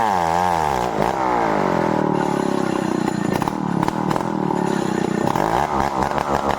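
Stihl 070 two-stroke chainsaw engine revving up and down in a steady rhythm, then dropping in pitch about a second in and running lower and unevenly.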